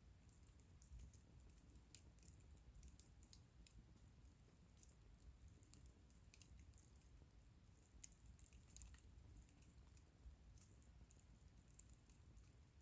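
Faint crackling of a wood bonfire: small, irregular snaps and pops over a low, steady rumble.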